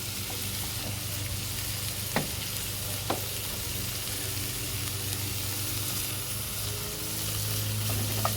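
Sliced peppers and onions sizzling in olive oil on a hot barbecue, a steady frying hiss with two light clicks about two and three seconds in. A lawnmower hums steadily in the background, getting louder near the end.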